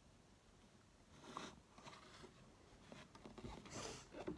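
Near silence with faint rustles and a few light clicks from hands handling Lego pieces.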